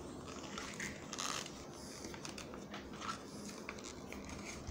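Quiet room tone with a few faint, scattered clicks and rustles.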